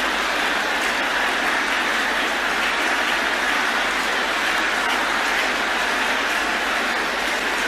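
A large congregation praying aloud all at once, many voices merging into one steady, dense wash of sound.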